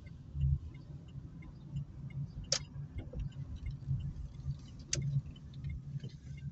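Interior of an Opel Meriva driving slowly: a low, uneven engine and road rumble inside the cabin. Two sharp clicks stand out, about two and a half seconds apart.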